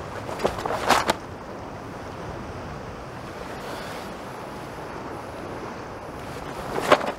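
Steady wind and surf noise, cut by sharp snaps of a karate gi on fast strikes: two within about the first second, and one more near the end.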